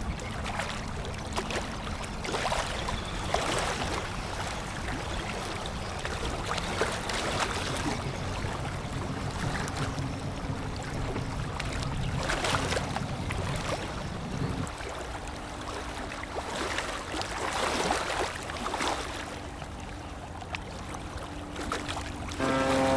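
Rushing water and waves that swell and fall, over a low steady engine hum that stops about two-thirds of the way through. Near the end a loud, steady tone with several pitches starts suddenly.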